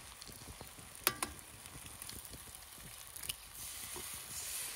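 Eggs frying in a cast iron skillet over a campfire, a steady sizzle that grows a little louder near the end. A single sharp click about a second in.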